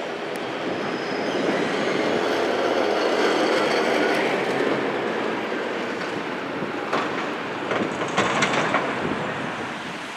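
A tram passing on steel rails, its rumble swelling to a peak about three seconds in and then fading, with a few wheel clicks and a brief high squeal near the end.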